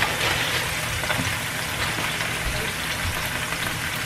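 Frozen broccoli florets and chopped onions sizzling steadily in a hot frying pan, with light crackles as the ice on the frozen broccoli meets the hot fat.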